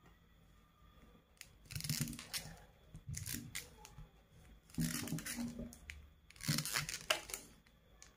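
Kitchen knife cutting through a ball of risen pizza dough against the plastic tablecloth beneath, in four short noisy strokes about a second and a half apart, each with a soft thud.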